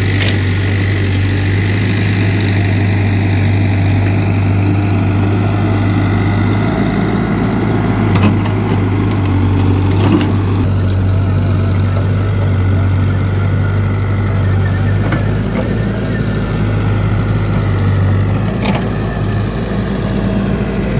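JCB backhoe loader's diesel engine running steadily with a low, even hum, with a few brief knocks about eight and ten seconds in.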